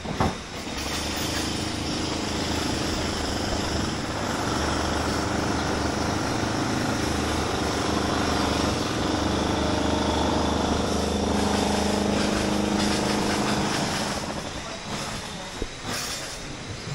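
A small engine running steadily with a low hum, growing louder through the middle and fading near the end; a brief knock right at the start.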